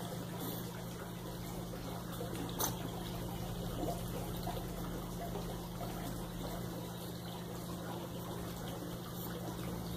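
Swimming pool pump running steadily: a constant low hum with water trickling through the filter.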